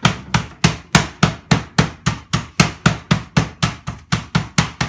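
Wooden rolling pin beating chicken breast flat under cling film on a plastic chopping board: a steady run of sharp whacks, about three and a half a second.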